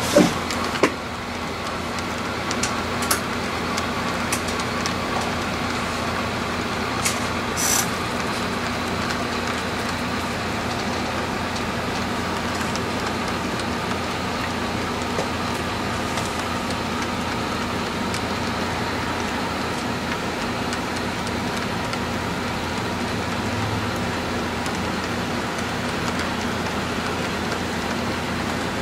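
HO scale model train cars rolling along the track: a steady hiss and hum of wheels on rail, with a few sharp clicks in the first several seconds.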